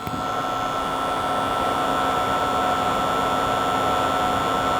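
Cooling exhaust fan at the back of an APC Back-UPS 1100VA running: a steady whirr with a faint whine through it, rising into full volume in the first half-second.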